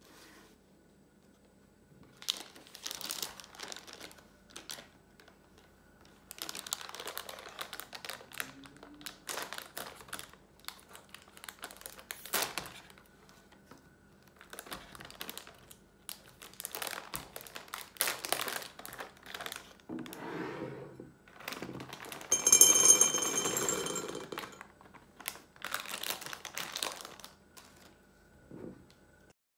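A plastic snack packet crinkling and tearing open in repeated bursts as it is handled. About two-thirds of the way through comes the loudest moment: chocolate-coated curd dragées pour into a glass bowl, a rattle with a ringing clink.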